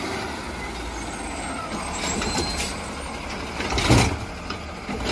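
Garbage truck with an automated side-loading arm running: a steady low engine rumble, with a louder rush of noise about four seconds in as the lifting arm reaches out to the bin.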